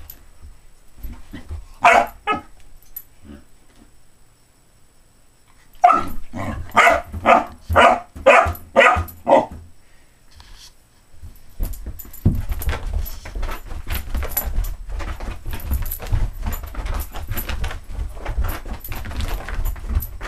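Vizsla dog barking: a bark about two seconds in, then a run of about seven quick barks between roughly six and nine seconds. After that comes a long stretch of steady scuffling and rubbing noise.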